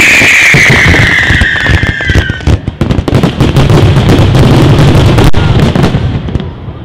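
Professional fireworks display: a loud, high hissing tone slowly falls in pitch and stops about two and a half seconds in, over rapid bangs, crackling and a low rumble from bursting shells. The barrage dies down near the end.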